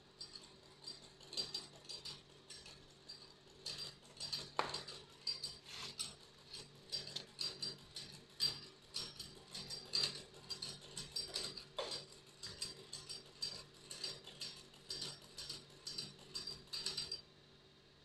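Old hand-cranked sewing machine stitching cloth: a quick, even clatter of the needle and shuttle mechanism, about four clicks a second, stopping about a second before the end.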